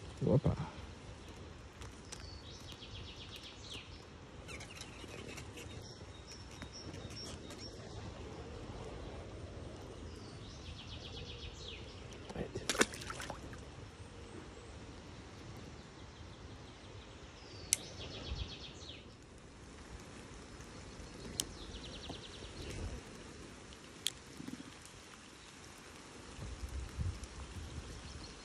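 A songbird singing short, rapid trilled phrases every few seconds over a steady hiss of light rain, with a few sharp clicks and a low thump just at the start.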